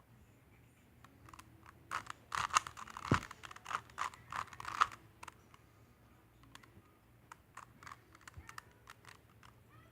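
Plastic Rubik's cube being turned by hand: quick clicking and clacking of the layers, a fast flurry from about two to five seconds in with sparser single clicks before and after, and one low thump about three seconds in.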